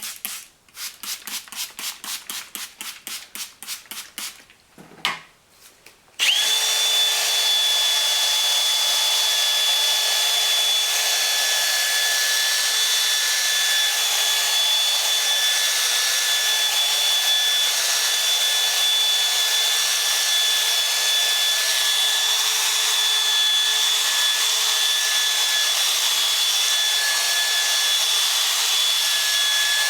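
Fast back-and-forth rubbing strokes for a few seconds, then a power drill starts about six seconds in and runs at a steady speed with a constant whine. It is sanding a plastic headlight lens with a fine, 3000-grit pad during headlight restoration.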